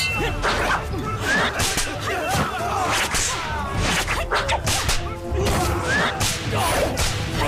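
Staged fight sound effects: a rapid run of whip-like whooshes from swung swords and swirling robes, with hits and thuds among them, over low background music.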